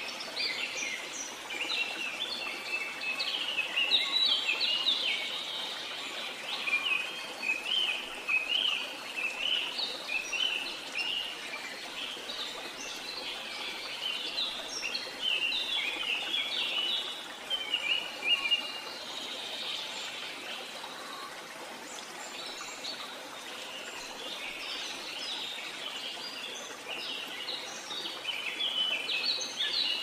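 A chorus of many small birds chirping and twittering in quick short notes over a steady hush of flowing water. The chirping thins out for a while past the middle and picks up again near the end.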